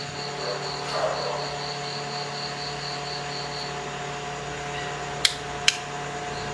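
Two sharp plastic switch clicks about half a second apart, near the end, as the replacement rocker switch of the power-strip outlet is fitted or worked, over a steady background hum.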